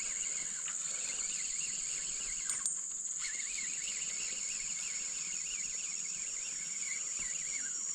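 Steady high-pitched drone of insects, with a fainter wavering chirping running underneath through the middle and a small tick about two and a half seconds in.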